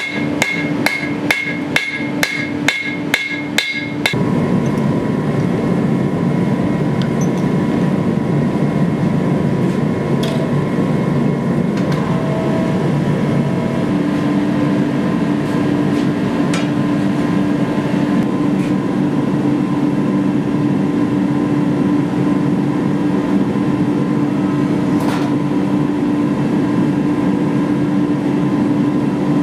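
Hammer blows on hot sword steel at the anvil, about two ringing strikes a second, stopping about four seconds in. Then a gas forge burner runs with a steady rushing noise, and a steady hum joins about halfway.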